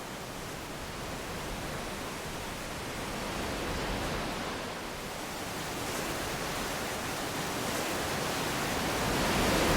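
Ocean waves rushing and washing against shoreline rocks, a steady surf noise that swells louder near the end.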